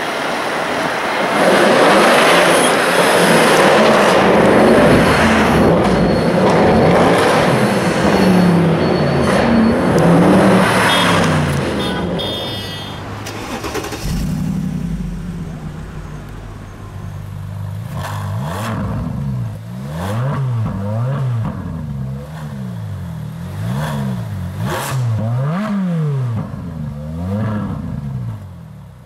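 Supercar exhausts: a loud run of hard acceleration for the first ten seconds or so, then an engine revved again and again, its pitch rising and falling about once a second.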